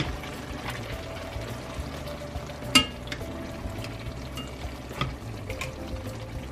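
Metal potato masher pressing and squelching whole peeled tomatoes in a hot enamel-coated cast-iron braiser, over a steady sizzle from the pan. A few sharp clinks of the masher against the pan, the loudest about three seconds in.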